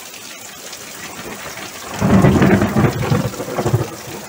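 Heavy rain pouring steadily onto grass and puddles, with thunder rumbling loudly for about two seconds starting about halfway through.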